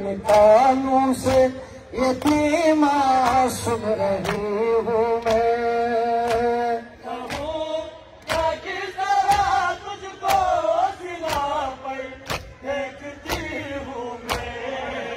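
Male voices chanting a Shia noha lament in long held lines, over a steady beat of sharp slaps from men beating their chests in matam.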